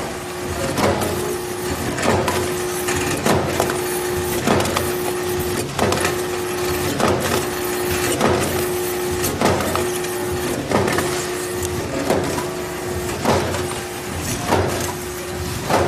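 PM 420MN vertical form-fill-seal pillow-bag packaging machine running, its sealing jaws clacking shut about once every 1.2 seconds in a steady rhythm, over a continuous machine hum that breaks off briefly with each cycle.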